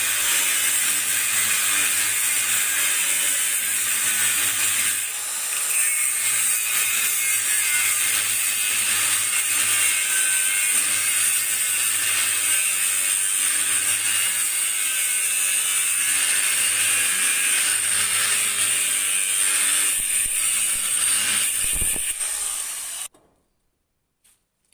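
Steady, harsh rasping noise of metalwork on a vehicle chassis, cutting off abruptly near the end.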